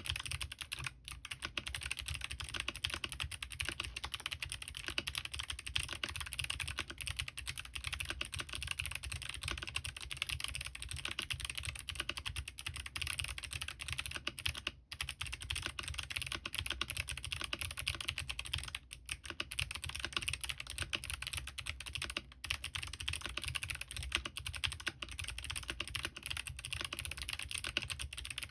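Continuous fast typing on a mechanical keyboard with clicky Kailh Box Jade switches and Signature Plastics DCS keycaps, on an aluminium plate with no foam. The sharp, crisp keystroke clicks run densely, with only a few short pauses.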